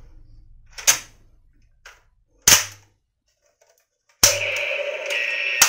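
Plastic toy lever-action rifle being worked by hand: a few sharp clicks and snaps from its lever and hammer, the loudest about two and a half seconds in. Background music comes back in about four seconds in.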